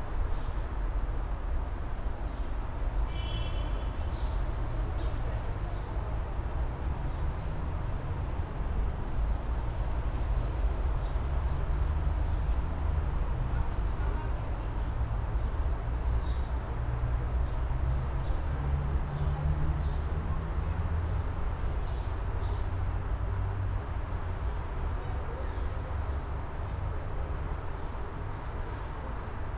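Steady low rumble and hum of a tram standing at a station platform, over city traffic noise. Many short high chirps repeat throughout, and a brief tonal beep sounds about three seconds in.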